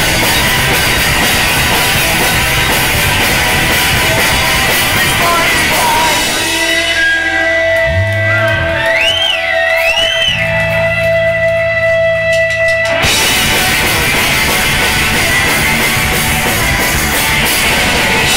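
Loud live rock band playing with guitars and drums. About six seconds in, the band thins to held tones with warbling, wavering pitch glides, then crashes back in at full volume about thirteen seconds in.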